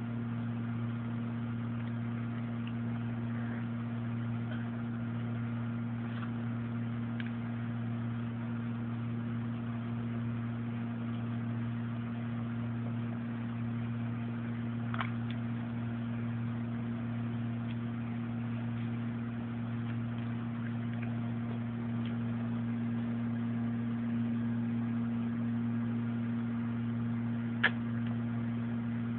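A steady low hum, with a faint click about halfway through and a sharper click near the end.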